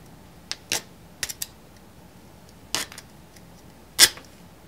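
A multi-tool's fish-scaler cutting tool working through rope, heard as a handful of short, crisp scrapes and snaps, the loudest about four seconds in.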